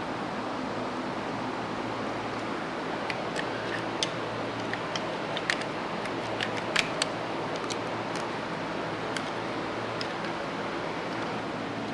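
Steady background hiss and low hum, with a scatter of light clicks and taps between about three and nine seconds in.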